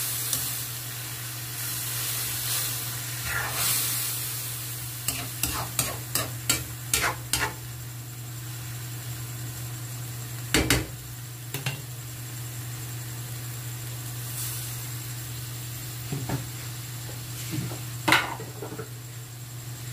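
Metal spatula stirring shredded banana heart in coconut milk in an aluminium wok, the food sizzling, over a steady low hum. A quick run of scraping clicks comes about five to seven seconds in, with a sharp knock of metal on the pan about halfway and another near the end.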